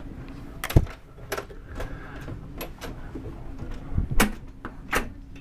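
A door being handled and closed: a handful of sharp knocks and latch clicks over a low steady hum, the loudest about a second in and again near four seconds.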